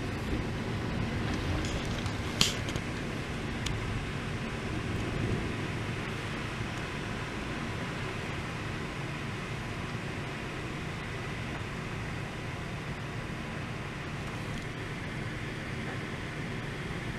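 Steady rushing of storm wind through trees, with a faint steady hum underneath and a sharp click about two and a half seconds in.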